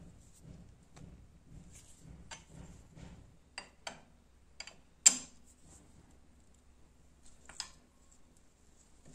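Scattered small metal clicks and clinks from an 8 mm socket wrench and the bolts of a motorcycle's oil filter cover as they are undone by hand, with a sharper clink about five seconds in.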